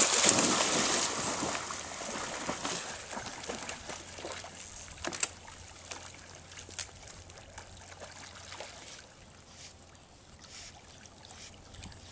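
Water splashing and churning as a Boykin spaniel plunges into an icy pond, loudest at the start and fading over the first few seconds as he swims away. After that, faint water sounds with scattered small ticks.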